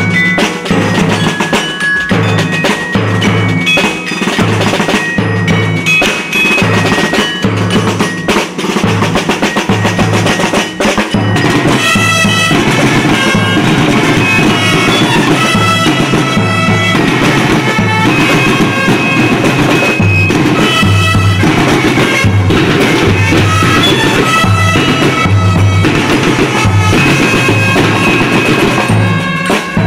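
Percussion-led music: a steady, loud drum beat under a high melody, growing fuller about eleven seconds in.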